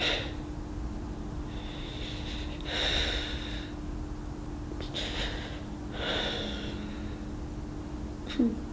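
A man breathing heavily through his nose, about four slow audible breaths, the longest a few seconds in, over a faint steady hum. A short sharp mouth or throat click comes near the end.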